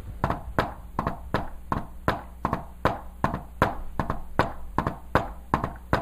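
A hand tapping on a whiteboard in a steady run of sharp knocks, about three a second. The taps imitate the S4–S1–S2 gallop rhythm of an S4 heart sound, the extra beat of an atrium contracting against a stiff left ventricle.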